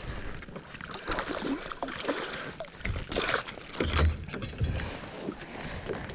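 A hooked bass being landed into a plastic kayak: water splashing and rod and reel handling noise as the fish is lifted out, with a couple of dull thumps about four seconds in as it comes against the hull.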